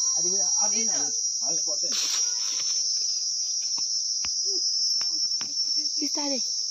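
Steady, high-pitched drone of insects. There is a brief rustle about two seconds in.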